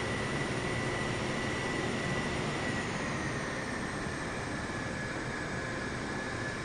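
Jet airliner's engines running, a steady rush of noise with a high whine that drifts slowly lower in pitch; the higher hiss fades a little from about three seconds in.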